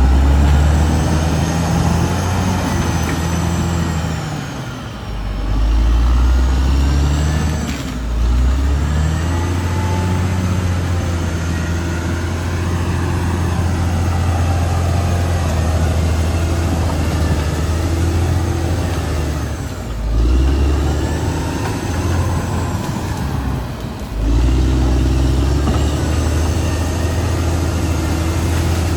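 Caterpillar D6R XL crawler bulldozer's diesel engine running under changing load, with a faint high whine that rises and falls. The engine dips and picks back up several times.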